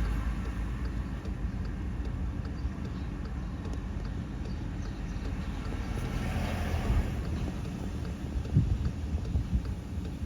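Strong wind buffeting the microphone: a gusty low rumble with sharper gusts late on, and a brief rise of hissing wind about six to seven seconds in.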